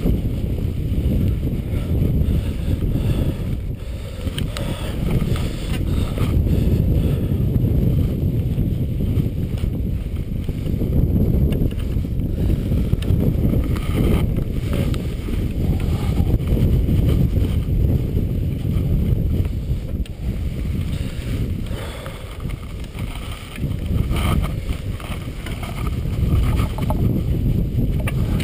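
Wind buffeting the action camera's microphone, a steady low rumble that swells and eases, with scattered light scuffs and clicks from gloved hands on the steel cables and shoes on the granite.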